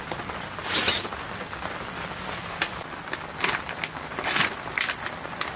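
Steady rain, with about half a dozen short, sharp crinkles as a plastic food bag is handled and pulled open.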